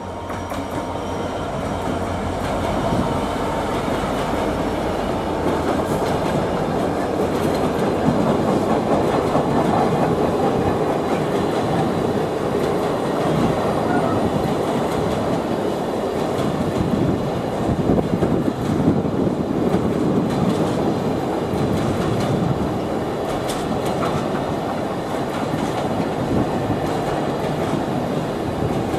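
Class 66 diesel locomotive approaching and passing at the head of a long intermodal container freight train, then the container wagons rolling by, rumbling and clattering over the rail joints. It grows louder over the first few seconds as the train draws level.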